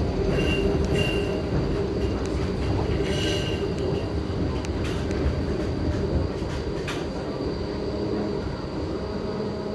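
Streetcar running on its rails: a steady rumble with brief high wheel squeals early on and a few sharp clicks from the track.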